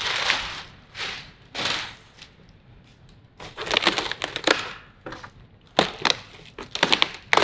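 Cardboard packaging and plastic wrapping being handled and opened: rustling swells, then bouts of crinkling and several sharp crackles and taps in the second half.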